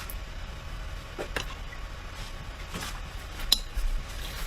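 A few light, sharp taps and clinks of eating utensils and dishes, four of them spread across a few seconds.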